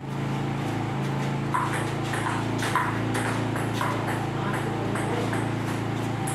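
Table-tennis ball clicking in a rally, a sharp tap every half second or so, over a steady low hum.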